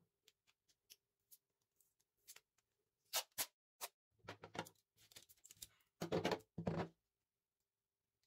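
Wide clear packing tape being pulled off its roll in short, loud rips: a few quick ones about three seconds in, then two longer ones about six seconds in. Faint ticks of handling come before.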